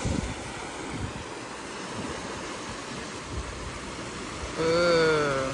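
Steady rushing background noise, with no clear source. About four and a half seconds in, a person's voice makes one drawn-out, slightly falling sound lasting about a second.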